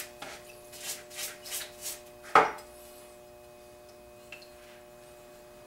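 Brush scrubbing a carburetor part over a plastic bowl of water in quick strokes, about three a second. About two and a half seconds in comes a single sharp knock as the brush is put down into the bowl, then only a faint steady hum.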